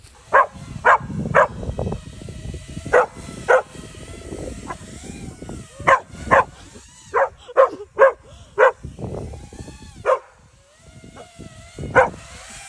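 A dog barking repeatedly in short, sharp barks, about fifteen in irregular bunches, with thin whining between the barks.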